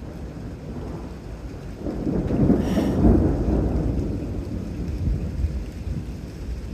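Thunder rumbling, swelling to a loud peak about two to three seconds in and slowly rolling away, with rain falling throughout.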